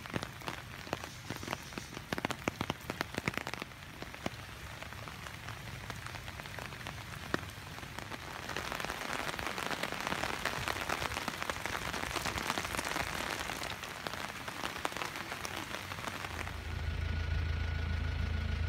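Rain falling, with many sharp ticks of close drops in the first few seconds and a denser, steady hiss of rain from about eight seconds in. A low steady hum comes in near the end and is the loudest part.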